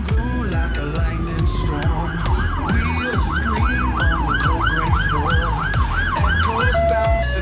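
Police car siren: a falling wail over the first two seconds, then a fast yelp of about two and a half sweeps a second, changing to a different tone near the end, over rock music with a steady beat.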